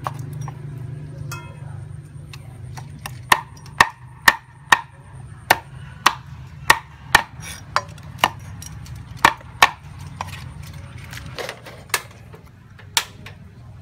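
A meat cleaver chopping raw meat on a round wooden chopping board: a series of sharp chops, about two a second, starting a few seconds in and stopping about ten seconds in.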